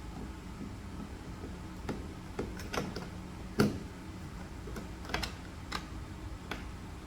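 Irregular light clicks and taps from hand work on a door-jamb strike plate and its screw, with one sharper knock a little past halfway.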